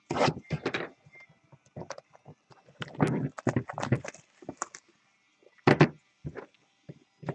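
Clear plastic shrink-wrap being torn and crinkled off a sealed trading card box, with cardboard handling and scraping. It comes in irregular crackly bursts with short pauses.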